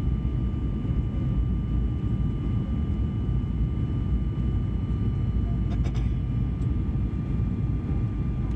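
Boeing 737-800 cabin noise heard from a window seat while descending to land: a steady low roar of the engines and airflow, with a faint steady whine above it. A few light clicks come about six seconds in.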